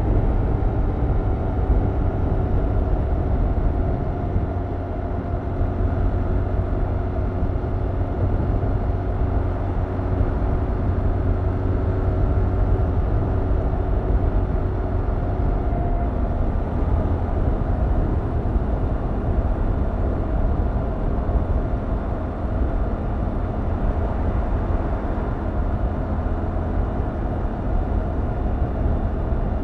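Stock 2021 Yamaha MT-07's 689 cc parallel-twin engine and exhaust running while riding, holding a fairly steady speed with only small changes in revs.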